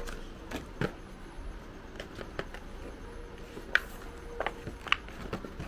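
Hands handling and pulling at a stiff plastic knife package: scattered crinkles and sharp plastic clicks, with two louder snaps nearly four and five seconds in.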